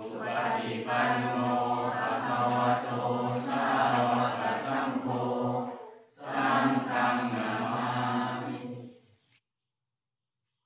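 Buddhist chanting by a group in unison, held on a low steady pitch. It comes in two long phrases with a brief break about six seconds in, and stops about nine seconds in.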